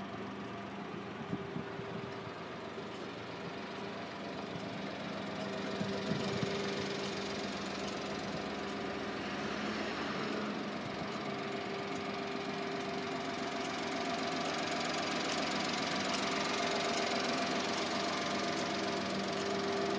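1992 Honda Acty kei truck's small three-cylinder engine idling steadily, growing slightly louder in the second half.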